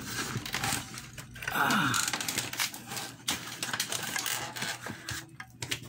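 Clicks, knocks and rattles of plastic parts and wiring being handled and pulled inside a CRT television's chassis.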